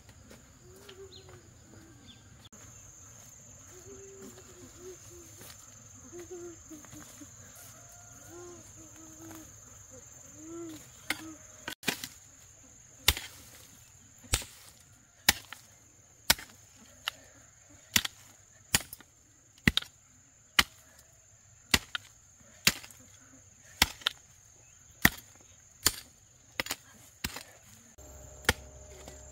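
Hoe blade chopping into soil, striking the ground about once a second starting some eleven seconds in. A steady high insect drone runs behind it.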